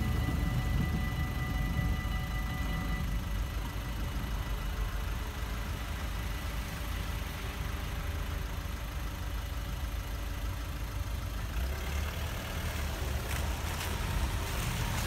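Road traffic at a railway level crossing: a fading tone from the departing diesel railcar over the first few seconds, then a low steady rumble of idling cars waiting as the barriers rise. Near the end, a run of clicks and clatters as the cars drive over the rails.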